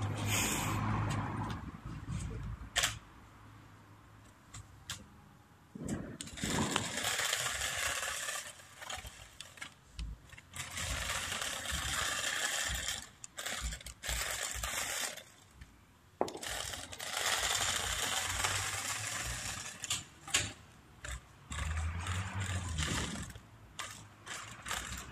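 Dasher double-sided stunt RC car's small electric motors whirring as its wheels run over asphalt, in spurts of a few seconds with short pauses between.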